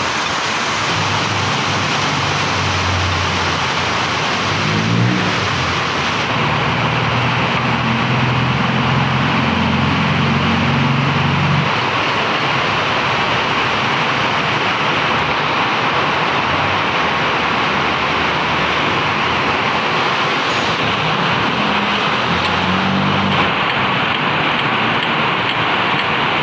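Toyota Vios car engine running: revved up about five seconds in and held for several seconds before dropping back, then revved briefly again near the end, under a loud steady hiss-like noise.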